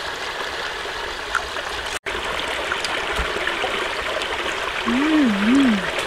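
A woman's hummed 'mmm' while eating, two rising-and-falling hums about five seconds in, over a steady rushing background noise. The background drops out for an instant about two seconds in.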